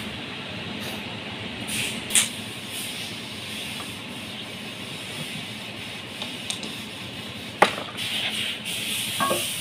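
Hand scraper working at a cast-iron engine block, scraping with occasional metal knocks: a short knock about two seconds in and a louder, sharp one about three quarters of the way through. A steady hiss of workshop background runs underneath.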